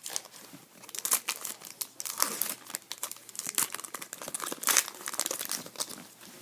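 Wrapper of an SP Authentic hockey card pack being torn open and crinkled by hand: a dense run of sharp, irregular crackles, busiest from about a second in until shortly before the end.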